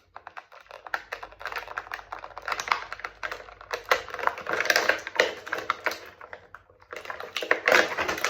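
Plastic packaging crackling and clicking in a rapid, irregular stream as an action figure is worked out of it, with a short pause near the end.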